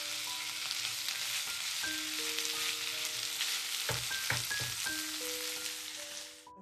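Food sizzling in a hot frying pan, a steady crackling hiss, with a few knocks about four seconds in. The sizzle cuts off suddenly near the end.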